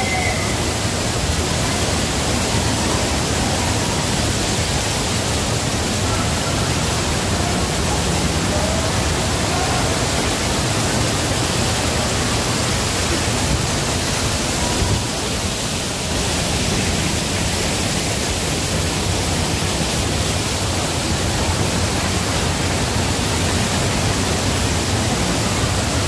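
Waterfall rushing: a steady, loud, even noise of falling water, dipping slightly for a moment just past the middle.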